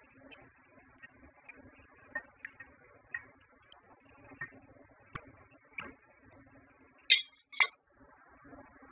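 Slotted spoon tapping and scraping against a stainless steel cooking pot while stirring the stew, in scattered light knocks. Near the end a glass pot lid is set on the pot with two sharp clinks.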